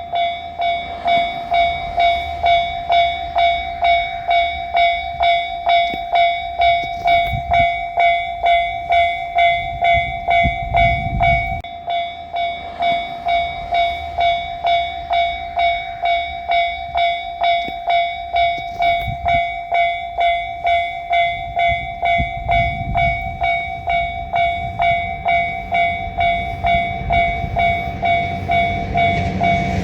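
Japanese railroad-crossing warning bell ringing steadily, about two strikes a second, signalling that a train is approaching. A low rumble grows near the end.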